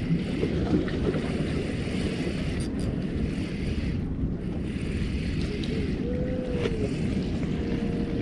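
Steady low rumble of wind buffeting the microphone, with the sea washing at the shore.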